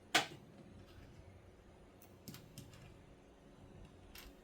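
A sharp click just after the start, then a few faint scattered taps and ticks: small plastic miniature toy pieces being handled and set down on a table.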